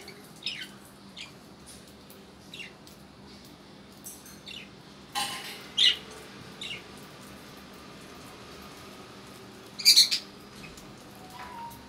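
Small caged pet parrots chirping in short, sharp, scattered calls, with a cluster about five seconds in. The loudest are a quick run of three squawky calls about ten seconds in.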